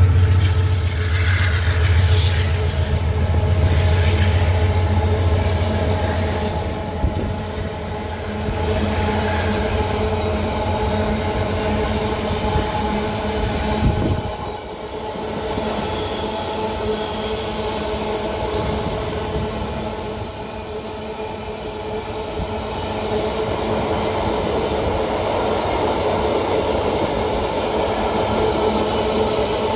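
A GE Dash 9 diesel locomotive passes with a low engine drone that fades over the first several seconds. A long string of empty ore gondola cars follows, rolling by with steady wheel noise and a sustained squeal from the wheels.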